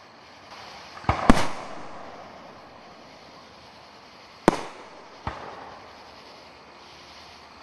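Aerial firework shells bursting: two bangs close together about a second in, the second the loudest, then another sharp bang about four and a half seconds in and a weaker one just after.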